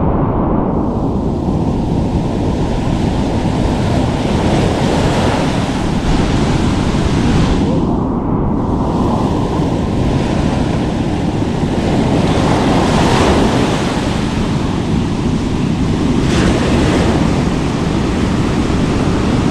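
Ocean surf breaking and washing up a sandy beach: a steady rush, with heavy wind noise buffeting the microphone.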